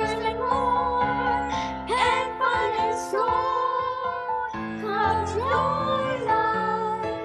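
Musical-theatre song: a backing track with a singing voice sliding between held notes.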